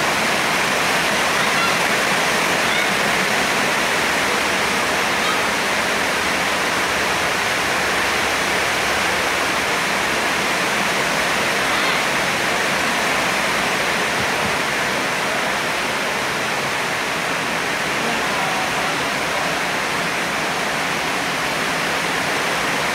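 Rain falling hard, a steady even hiss that does not let up.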